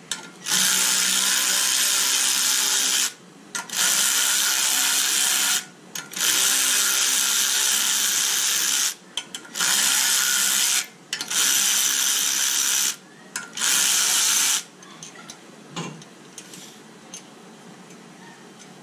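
Cordless drill-driver spinning a socket in six runs of two to three seconds with short pauses, turning the screws of a valve spring compressor bolted to a BMW M52 cylinder head. After the last run, about three-quarters of the way in, only light clicks and knocks of metal tools being handled remain.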